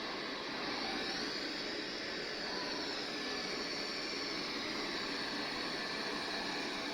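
MOVA P10 Pro Ultra robot vacuum running, its suction fan giving a steady whooshing hum. A high whine rises about a second in and then slowly sinks in pitch.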